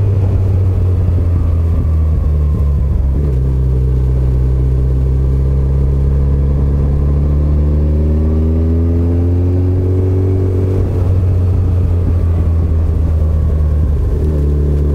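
Touring motorcycle engine running on the open road, heard from the rider's seat over a steady low wind rumble. About four seconds in, its pitch climbs gently as the bike accelerates, then it eases back near eleven seconds.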